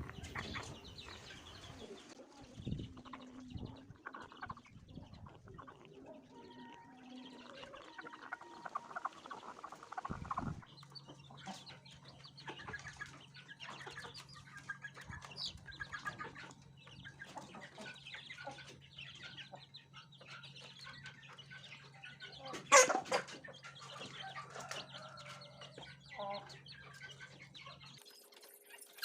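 Chickens clucking and chirping in short scattered calls, with a low steady hum through the latter part and one sudden loud sound about three-quarters of the way through.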